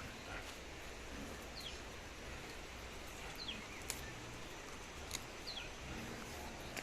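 A bird calling, a short high whistle falling in pitch, repeated about every two seconds over faint rural background noise.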